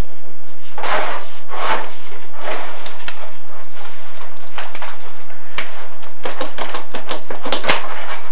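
Irregular knocks, clicks and scrapes of a chimney inspection camera and its push rod rubbing and bumping along a creosote-coated flue, with a quick run of clicks near the end, over a faint steady hum.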